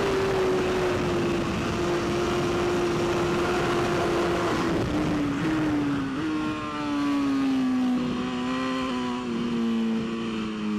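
Onboard sound of a superbike's inline-four engine at high revs under heavy wind rush. About five and six seconds in, the rider rolls off and downshifts, each shift giving a brief jump in engine pitch. The engine then winds down on engine braking into a corner while the wind noise eases.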